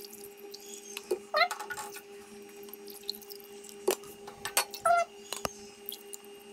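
Water poured from a plastic jug into a ceramic mug, with a few sharp clicks of the jug and mug, over a steady hum. Two short rising calls sound about a second and a half in and again near five seconds.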